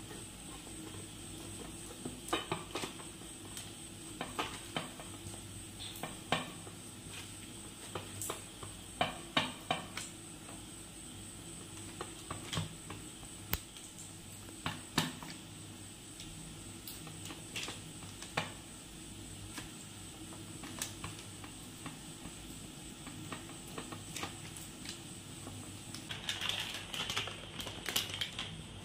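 Oiled fingers patting and pressing a stuffed maida-dough poli flat on a plastic sheet over a steel plate: soft, irregular taps and light slaps. Near the end the plastic sheet crinkles as it is lifted.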